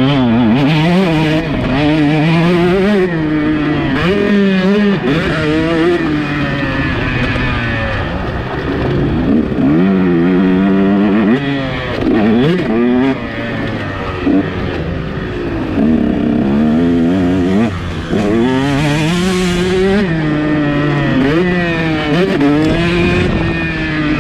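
KTM SX 150 two-stroke motocross bike engine at race pace, revving up and dropping back again and again as the rider accelerates, shifts and rolls off around the track.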